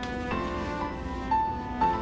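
Background music of slow, held notes, changing pitch a few times.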